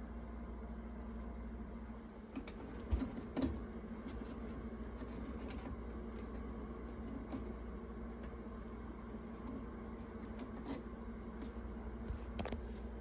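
Scattered light clicks and handling knocks over a steady low hum, with two louder knocks about three seconds in and a few more clicks near the end.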